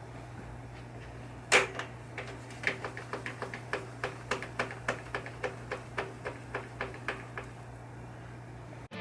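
A sharp click, then a run of light, irregular clicks and taps, about two to three a second, over a low steady hum; the sound cuts off abruptly just before the end.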